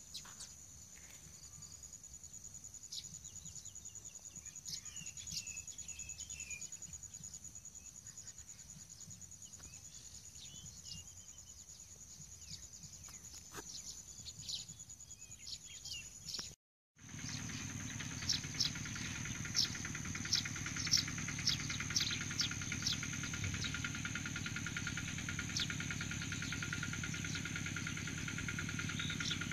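A steady, high-pitched drone of insects, with scattered short bird chirps. About halfway through, the sound cuts out for a moment and comes back louder, with a low hum underneath.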